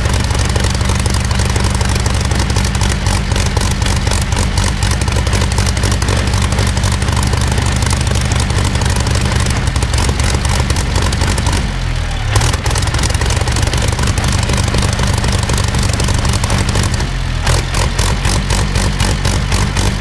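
Rolls-Royce Griffon 58 36.7-litre V12 aero engine running steadily on a trailer test stand, turning its propeller. The note dips briefly twice, a little past halfway and again near the end.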